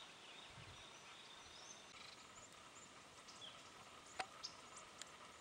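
Faint outdoor forest ambience: a soft steady hiss with distant birds calling, and a few short, sharp chirps about four seconds in.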